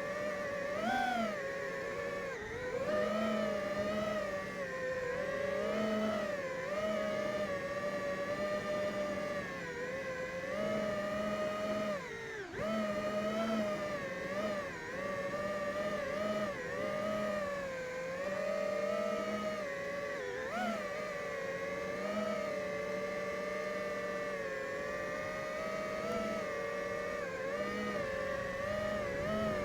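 An FPV quadcopter's brushless motors whining in flight, the pitch rising and falling continually as the throttle changes.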